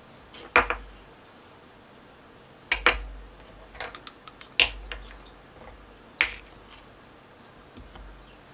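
Glass and ceramic bowls and plates set down one after another on a wooden cutting board: a series of sharp clinks and knocks a second or two apart.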